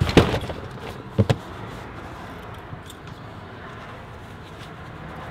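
Things being handled in a car's open rear hatch: a loud clattering knock right at the start, then two quick sharp knocks a little over a second in, over a steady outdoor background hum.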